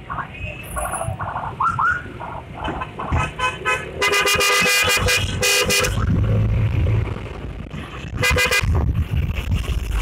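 Motor scooter horn honking to clear a way through traffic for an ambulance. It gives a quick run of short toots, then a long blast, a short honk, and after a pause another short honk, over the low rumble of riding.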